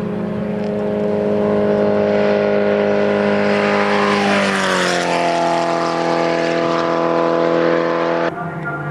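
Midget race car engine running at high revs as the car passes by, its pitch dropping about halfway through as it goes past. The sound cuts off abruptly near the end.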